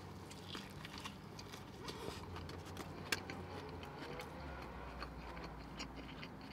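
Faint close-up eating sounds: biting into and chewing a soft sub sandwich with mayo, lettuce and tomato, with many small wet mouth clicks and smacks and one sharper click about three seconds in.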